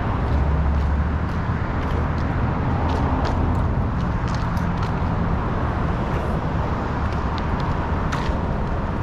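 A motor vehicle's engine running nearby, a steady low hum in street noise, with a few short high ticks scattered through it.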